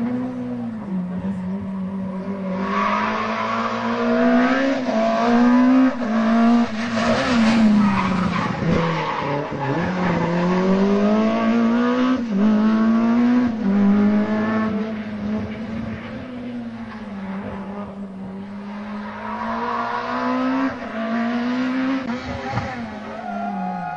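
Rally cars being driven hard on a tarmac stage. Each engine note climbs steeply through the revs and drops back at every gear change, over and over. Around ten seconds in the revs fall away for braking, then the note builds again.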